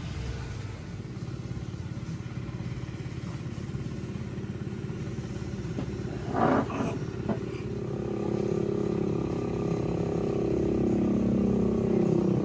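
A vehicle engine running, growing louder in the second half as it comes closer or speeds up, with a brief clatter about halfway through.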